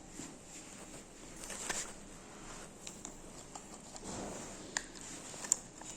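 Faint handling noises: light rustling and a few small sharp clicks, the sharpest near the end, as the plastic parts of a motion detector and its mounting bracket are worked by hand.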